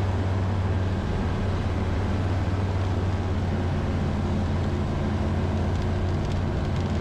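Steady drone of a Zenith STOL CH 701's 100-hp Rotax 912ULS four-cylinder engine and propeller in level flight, an even low hum that does not change.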